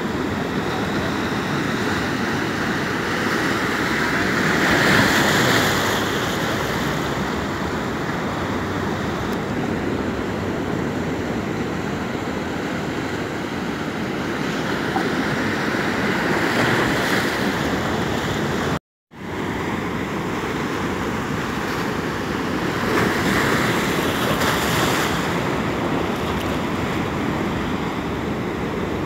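Ocean surf breaking over rocks: a steady wash of waves that swells louder as breakers crash, about five seconds in, around seventeen seconds and again around twenty-four seconds. The sound cuts out for a moment about two-thirds of the way through.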